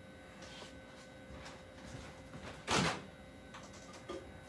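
Faint movement sounds, then a single short, loud thump about two and three-quarter seconds in.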